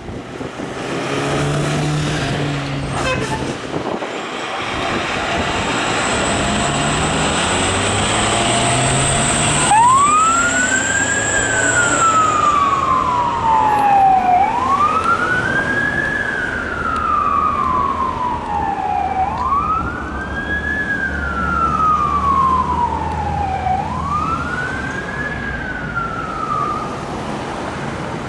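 A Forest Service fire engine's siren sounding a slow wail: about four cycles, each a quick rise in pitch and a slower fall over four or five seconds. It comes in about a third of the way through over truck engine and road noise, and fades near the end.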